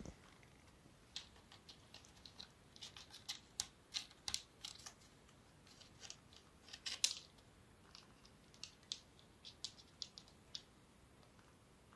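Cats crunching dry kibble taken from a wooden treat toy: an irregular scatter of small, crisp crunches and clicks, densest a few seconds in, with one louder crunch past the middle, thinning out near the end.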